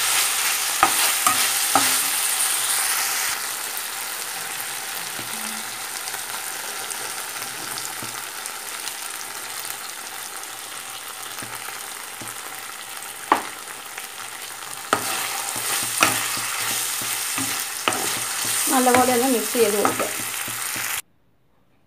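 Chicken pieces sizzling in oil and sauce in a frying pan while being stirred with a perforated steel spatula, the spatula knocking sharply against the pan a few times. The sizzle is strongest for the first few seconds, then quieter, and cuts off near the end.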